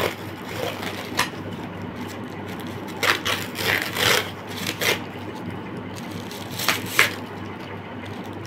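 Plastic packaging rustling and crackling as a taped parcel is unwrapped by hand, in scattered bursts: a cluster about three seconds in and two sharp crackles near the end.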